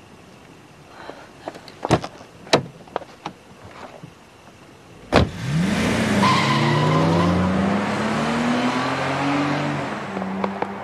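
A few clicks and knocks of a car door being handled, then a loud door slam about five seconds in. Straight after it the car's engine revs up, its pitch rising and falling, as the car pulls away.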